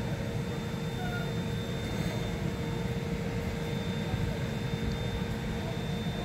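Freight train of grain hopper wagons behind electric locomotive 6193-160: a steady low rumble with two thin steady tones above it, one mid-pitched and one high.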